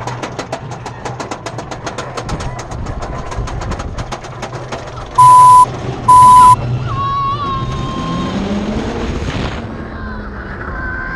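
Drop tower ride's carriage ticking rapidly, about eight ticks a second, as the seats are raised. Then two loud beeps from the ride's warning signal before the drop, about five and six seconds in. Riders yell near the end as the seats fall.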